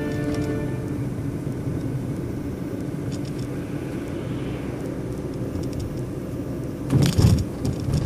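Car driving along a city street, heard from inside the cabin: a steady low rumble of engine and road noise. A short run of louder knocks comes about seven seconds in.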